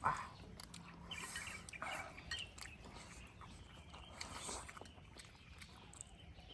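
People eating: chewing, with scattered light clicks and short scraping sounds from utensils on bowls.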